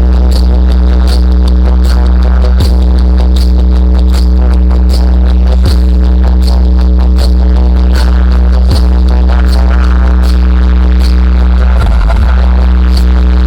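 Loud bass-heavy electronic music through a large DJ sound system. Sustained deep bass tones sit under fast, steady ticking. A deep hit with a falling pitch sweep lands about every three seconds.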